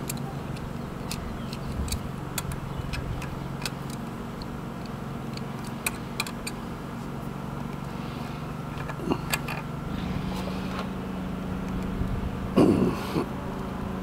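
Scattered sharp metal clicks and taps of pliers and brass fittings being worked onto a vacuum pump's port, over a steady low hum.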